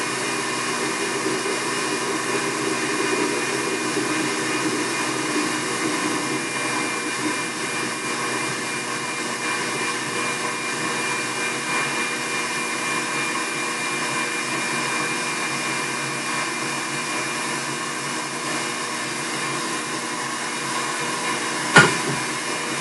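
Tilt-head stand mixer running at high speed, its wire whisk whipping egg whites in a glass bowl into Italian meringue while hot sugar syrup is poured in. A steady motor hum with a whine, with one sharp knock near the end.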